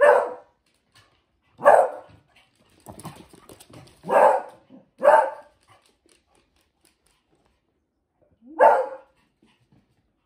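Beagle play-barking at another dog: five short, loud barks spread over the stretch, with softer yips or scuffling between the second and third.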